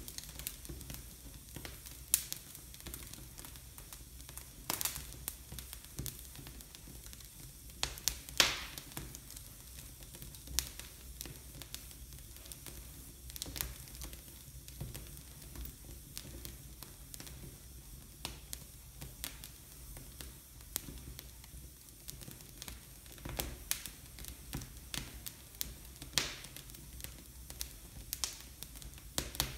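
Wood fire burning in an open fireplace, crackling irregularly with scattered sharp pops, the loudest about eight seconds in.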